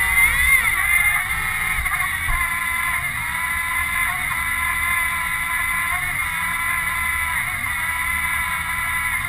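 Small robot's electric drive motors and gearing whining, the pitch wavering up and down in the first second and then holding mostly steady, with a murmur of voices in the background.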